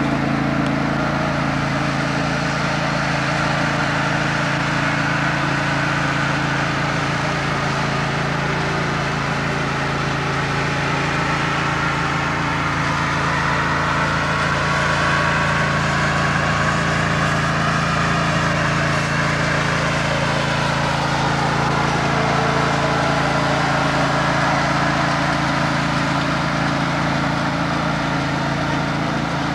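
A riding lawn mower and the four mowers it tows, their engines running together in a steady drone, with a slow rise and fall in pitch about halfway through.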